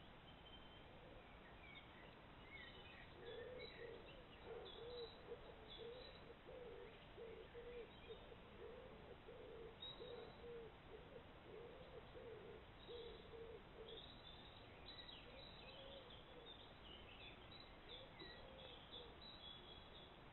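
Faint cooing of a pigeon: a long run of soft, low coos from about three seconds in until about fourteen seconds in. Small birds chirp faintly and high above it, busiest near the start and again toward the end.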